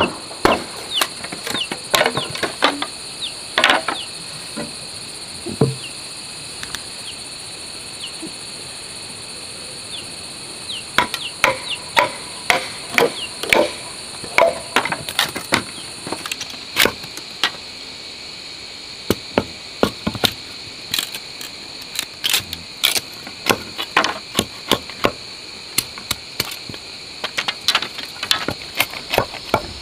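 Green bamboo being split with a machete driven by a wooden club: irregular runs of sharp knocks and cracking as the blade bites and the culm splits. Insects chirr steadily in the background.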